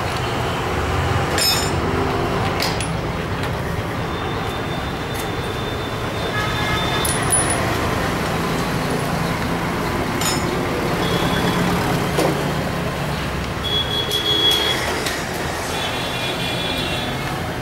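Steady road traffic rumble, with a few light metallic clicks from hand tools working on a scooter engine.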